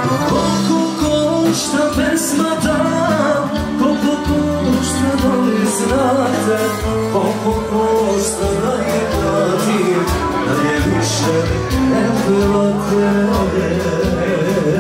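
Live band music with a man singing into a microphone, backed by accordion, electronic keyboard and drums, playing steadily throughout.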